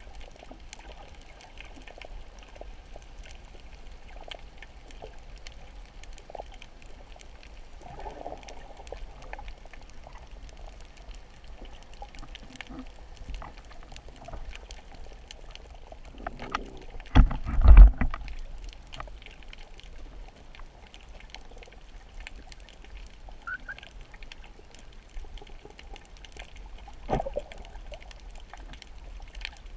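Underwater ambience on a coral reef: a steady muffled water hiss with scattered faint clicks. About seventeen seconds in there is a loud low rumble lasting about a second, and a smaller thump near the end.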